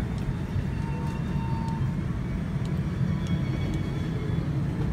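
Steady low rumble of a parked Boeing 787-9 airliner cabin's background noise, with a few faint clicks.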